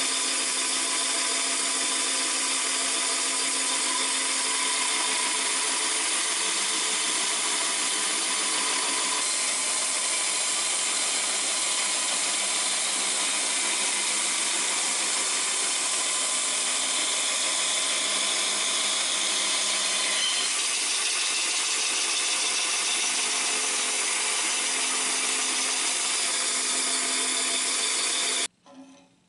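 Old Craftsman bandsaw running steadily and ripping a small bark-covered log into slabs. The sound cuts off abruptly near the end.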